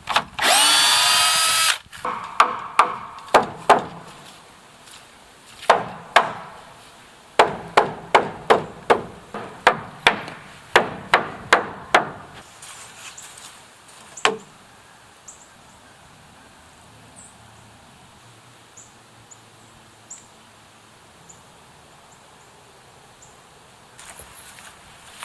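A cordless drill spins briefly, then a hammer strikes wood framing again and again, in runs of knocks at up to about two a second, ending with one last blow about halfway through; after that only faint background remains.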